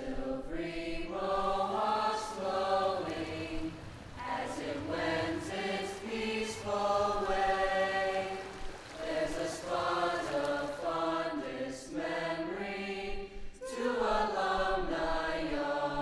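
Background music of voices singing, choir-like, in long held phrases with short breaks between them.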